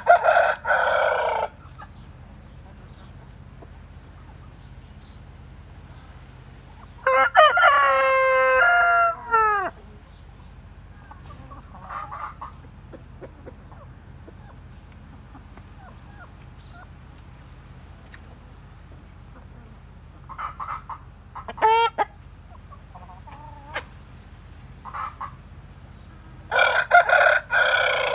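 A seven-month-old Plymouth Rock rooster crows once, a single crow of about two and a half seconds that drops in pitch at the end, about seven seconds in. Short harsh squawks from the chickens come at the start and near the end, with a few short clucks in between.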